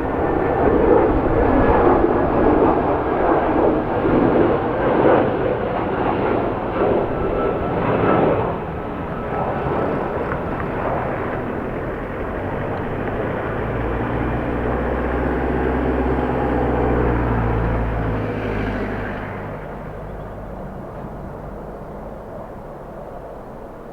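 Airbus A320 jet engines running as the airliner comes in to land, loudest for the first eight seconds with a faint falling whine, then giving way to a deeper low rumble that fades away about twenty seconds in.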